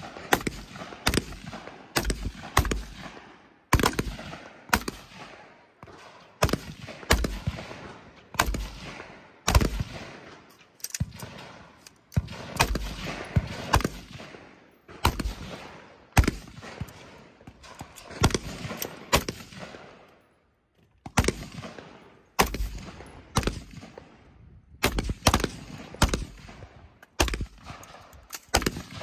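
Gunshots fired in an irregular string, about one to two a second, each sharp crack followed by an echoing tail, with a short pause about two-thirds of the way through.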